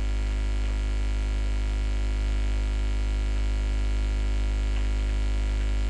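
Steady low electrical mains hum with a buzzy edge, unchanging and with no other sound over it.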